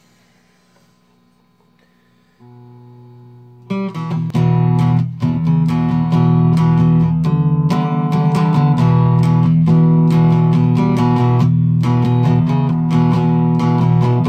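Homemade box-bodied electric guitar in open EBE tuning. A faint steady hum comes first and grows louder about two and a half seconds in. From about four seconds in, stretched chord shapes are plucked and strummed in a steady run of chords.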